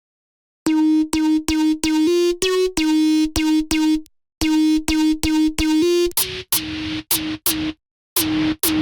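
Ableton synthesizer rack being auditioned: short, repeated synth notes, mostly on one pitch with a small step up now and then. From about six seconds in the sound changes to a brighter, hissier preset.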